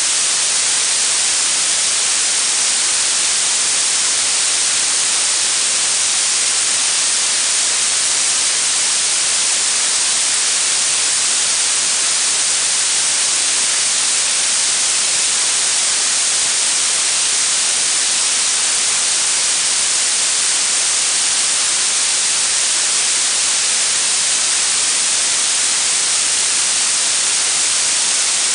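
Blue noise: a steady, unchanging synthetic hiss, strongest in the treble and thin in the bass.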